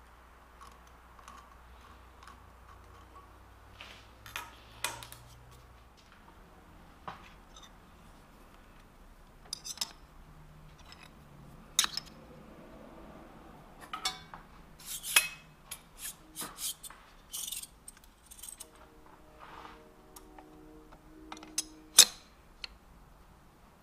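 Steel parallels and hand tools clinking and clanking against a steel machine vise as it is set up for drilling: scattered sharp metal knocks, one ringing briefly near the end, and the loudest clank just before the end.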